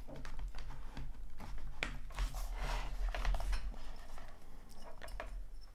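Handling sounds of a sketchbook and a small metal board clip: scattered light clicks and knocks, with the rustle of the paper and cover sliding as the clip is fitted on.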